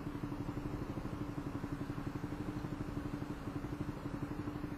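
Honda Helix scooter's single-cylinder engine running steadily at low revs, a held hum over a fast, even pulse.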